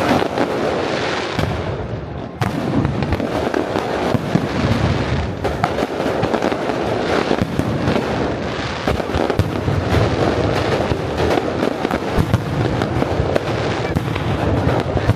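Aerial fireworks display going off in quick succession: a dense, continuous run of bangs and crackling.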